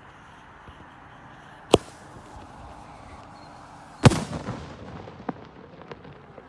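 Homemade aerial firework shell: a sharp bang as it is fired from the ground, then about two seconds later a louder report as it bursts overhead. The report echoes away over the next couple of seconds with a few scattered cracks.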